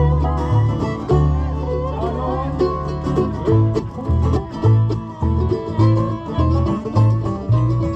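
Acoustic bluegrass jam: a banjo picking over guitar, with low bass notes alternating on a steady beat.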